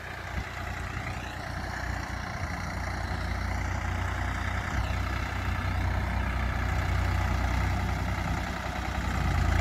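Swaraj 855 FE tractor's three-cylinder diesel engine running steadily under load while it pulls a laser land leveller across the soil, growing gradually louder.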